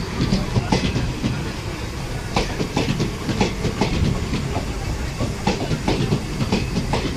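Passenger train coaches rolling past, the wheels clicking and knocking over rail joints in an uneven run, over a steady low rumble.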